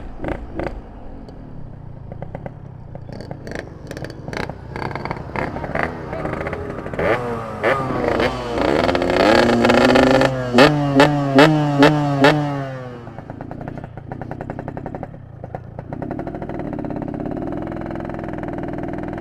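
Yamaha RX-King's ported single-cylinder two-stroke engine running unevenly with scattered pops, then revved up with a rising pitch and blipped sharply four times. It then falls back to a steady idle.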